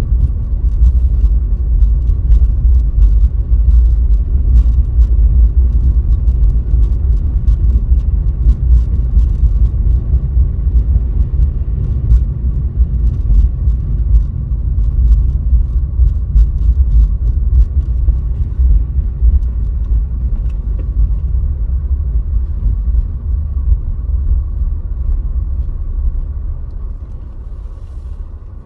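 Car driving through heavy snow, heard from a dashcam: a loud, steady low rumble of road and tyre noise with faint ticks, easing off over the last few seconds.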